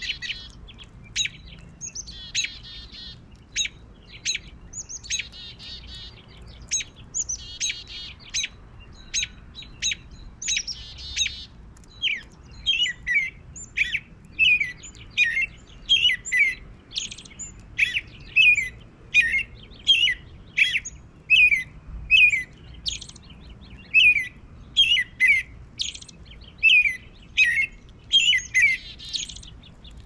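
Small songbirds chirping: short, high chirps with several buzzy trills in the first half, then a steady run of quick downward-slurred chirps.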